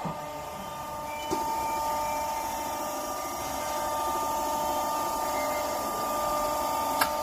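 Hydraulic pump motor of a Y120D hose crimping machine running steadily through a crimp cycle, a constant hum with a steady high tone. There is a short knock about a second in and a sharp click near the end.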